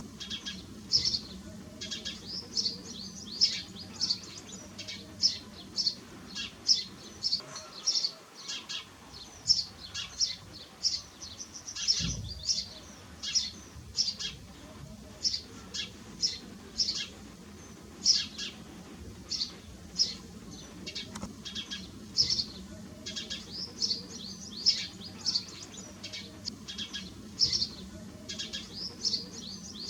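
House sparrows chirping, a group of them giving short, repeated chirps several times a second without pause.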